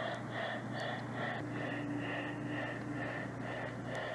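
Steam locomotive exhaust chuffs for an HO scale model steam locomotive, beating evenly about two to three times a second over a low steady hum.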